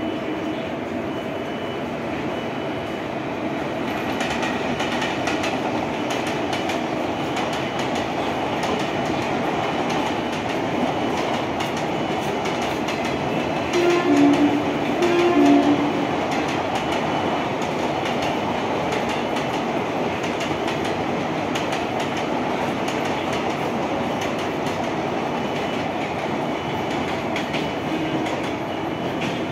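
Long-distance express passenger train passing at speed, the wheels clattering steadily over the rail joints. About halfway through, a train horn sounds two short blasts.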